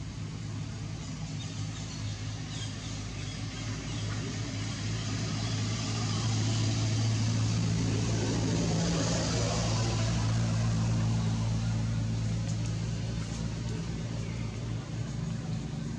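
Steady low hum of a running engine, with a wash of motor-vehicle noise that grows louder through the middle and then eases off.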